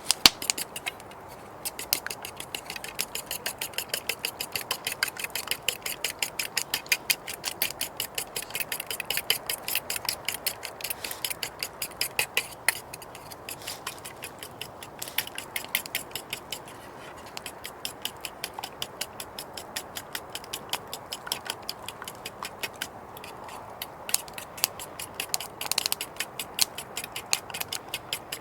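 Rapid, regular light clicking, several clicks a second, in runs broken by brief pauses.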